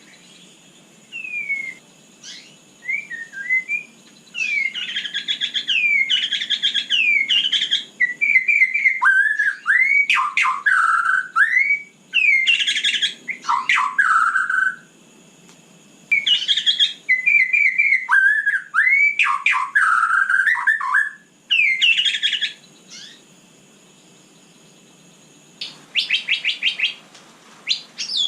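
White-rumped shama singing: a long run of varied whistled phrases with fast trills and sliding notes, broken by two short pauses and ending in a rapid string of repeated notes. A faint steady high-pitched tone runs underneath.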